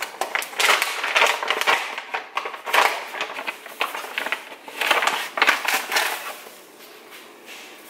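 Plastic pouch of granulated monkfruit sweetener crinkling and rustling as it is handled and tipped to pour, in a string of irregular crackly bursts that die down near the end.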